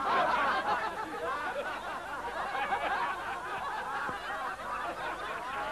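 Theatre audience laughing, snickering and murmuring.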